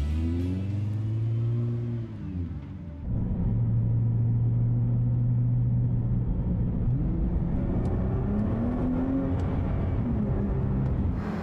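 Nissan GT-R engines under acceleration on a race track: the engine note rises and falls in the first two seconds, dips briefly, holds steady, then climbs again from about seven seconds in.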